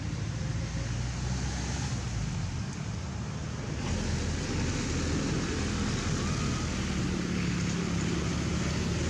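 Steady outdoor rushing noise with a low droning hum beneath it, growing a little louder about four seconds in.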